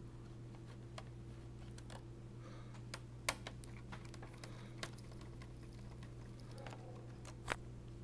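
Scattered, irregular small clicks and taps of laptop parts and plastic panels being handled during disassembly, over a steady low hum.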